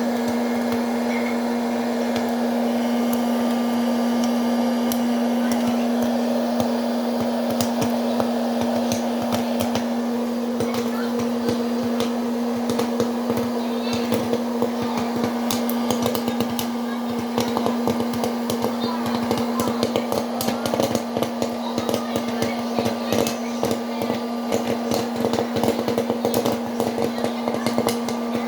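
Electric popcorn maker running with a steady motor hum while kernels pop: scattered sharp pops start about a quarter of the way in and become rapid and crowded from about halfway, as the corn reaches full popping.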